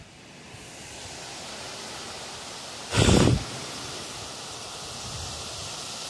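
Strong wind rushing through trees, a steady hiss of tossing leaves and branches that builds over the first second, with one brief loud gust buffeting the microphone about three seconds in.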